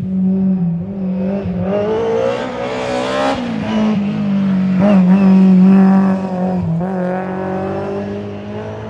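Historic rally car engine at full throttle on a stage, pitch climbing then dropping sharply with gear changes about three and a half, five and seven seconds in. It grows loudest a little past the middle as the car goes by, then fades slightly.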